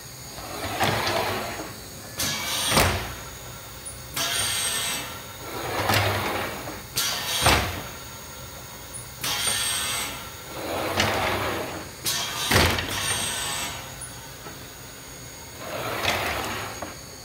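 Rotary blister-sealing machine cycling: long hisses of compressed air from its pneumatic cylinders, each followed by a sharp clack and a heavy thud as the table indexes and the sealing press comes down, repeating about every five seconds.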